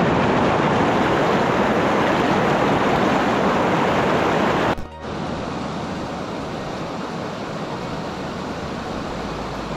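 Shallow water rushing and splashing over boulders, loud and close. It cuts off suddenly about five seconds in, leaving a quieter steady outdoor hiss.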